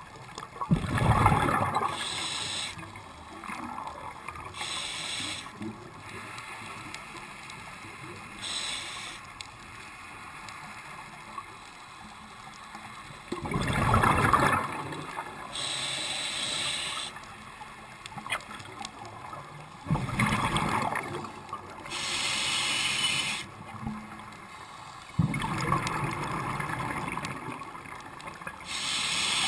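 Scuba diver breathing through a regulator underwater: hissing inhalations and four bursts of bubbling exhaled air, spaced several seconds apart.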